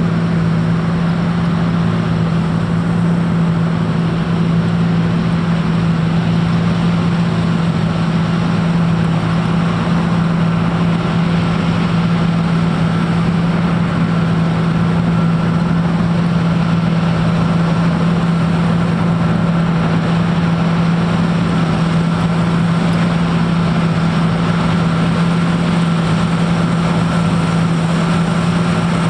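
John Deere combine harvester running at a steady working pace while cutting and threshing a cereal crop. Its hum holds one pitch throughout, and a faint high whine joins in about a second in.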